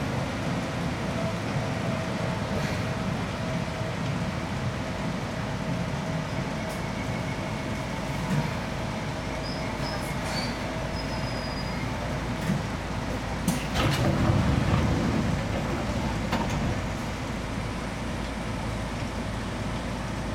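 Seibu 2000 series electric train running out of a station, heard from inside the cab: a steady rumble of motors and wheels on the rails, with a louder stretch of wheel clatter about two-thirds of the way through.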